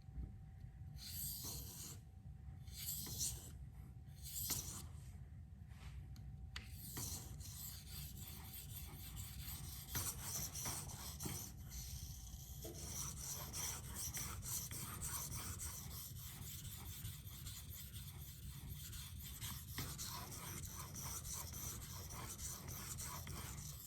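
K390 steel knife blade being stroked across a Venev 400F diamond waterstone, a dry rasping scrape. For the first several seconds there are separate strokes, then it settles into quick continuous back-and-forth scraping. A faint steady tone underneath stops about halfway.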